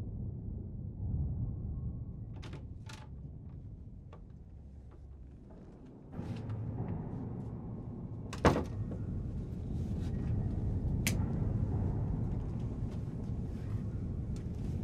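A steady low rumble that fades over the first few seconds and comes back up about six seconds in. A few light clicks, and one sharp knock a little past eight seconds in, the loudest sound.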